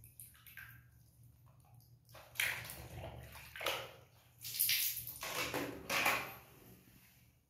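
Soapy water sloshing and splashing in a basin as a plastic toy truck is swished through it, in several short surges starting about two seconds in.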